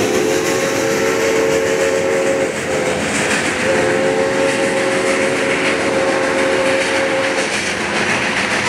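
A passing train sounds two long chord blasts: the first holds on and stops about two and a half seconds in, the second follows about a second later and lasts about four seconds. Under them runs the steady rumble and rail clatter of the moving train.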